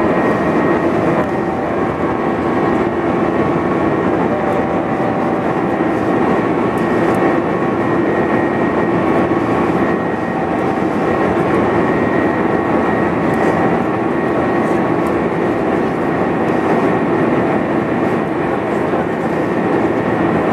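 Cabin noise of an Airbus A320 climbing out after takeoff: the jet engines at climb power and the rushing airflow make a steady, loud rush with a few steady humming tones running through it.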